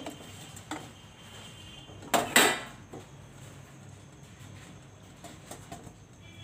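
Stainless steel idli steamer and its lid clanking as the stand of moulds is settled in and the lid is put on: two loud ringing clanks about two seconds in, with lighter metal knocks before and after.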